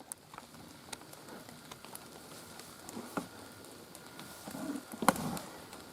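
Water dripping from wet trees after rain: scattered single ticks and taps on leaves over a faint steady hiss, with a sharper knock about five seconds in.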